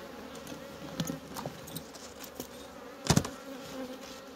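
Honeybee colony buzzing steadily around an opened hive, with a few light clicks and one louder knock about three seconds in as the hive parts are handled.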